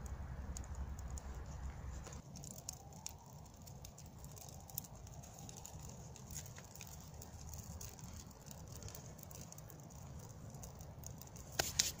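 Birch-bark tinder being lit with a ferrocerium rod: irregular light ticks and crackles as the tinder catches and starts to burn, with a few louder clicks near the end.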